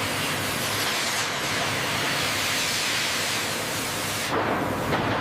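Steady hissing noise of industrial cutting machinery at work, with a change in texture about four seconds in.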